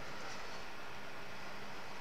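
Steady background hiss with no distinct sound standing out.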